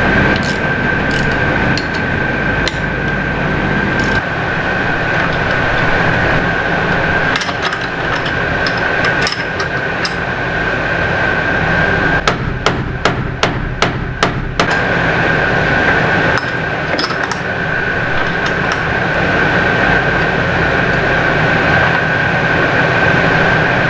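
Sharp metal-on-metal clicks and taps from hand tools working the bolts of a steel porthole frame as it is tightened and drawn into a snug opening, with a quick run of about eight strokes around the middle. A steady hum with a constant high tone runs underneath.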